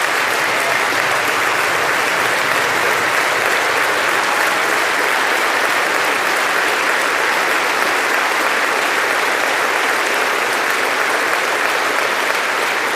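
Sustained applause from a large audience, a steady clapping that holds for the whole stretch.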